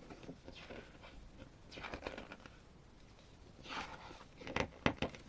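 Glossy photobook pages being handled and turned, soft paper swishes a few times, then several sharp little clicks of paper near the end.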